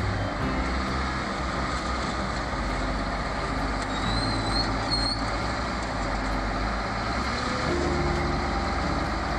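Diesel engine of a Clark Ranger wheeled log skidder running steadily as the machine drives slowly up onto a lowbed trailer.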